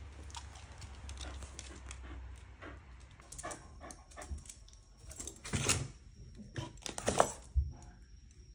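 Shiba Inu moving about close to the microphone in a small entryway while its leash is clipped onto its collar, with a few short, loud rustles of fur, collar and leash handling about five and a half and seven seconds in.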